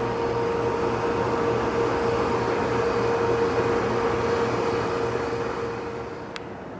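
A train running past, a steady rumble with a held mid-pitched tone, fading away over the last second or so.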